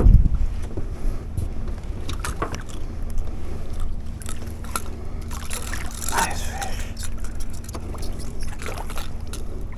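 Small fishing boat on the water: a steady low rumble of wind and water, a faint steady hum, and scattered knocks and splashes from the boat. A loud thump comes right at the start, and a busier clatter about six seconds in.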